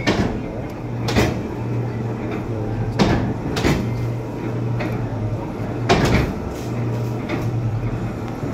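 Bhupindra platen die-cutting machine running: a steady motor hum with a sharp clack each time the platen closes to cut a sheet, about six clacks at one- to two-second spacing.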